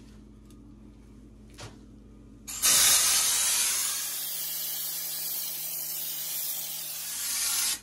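EZ-Pro texture spray gun, driven by CO2 from a tank, spraying drywall texture: a loud steady hiss of gas and spray that starts suddenly about two and a half seconds in, is loudest at first, then holds steady and cuts off suddenly near the end.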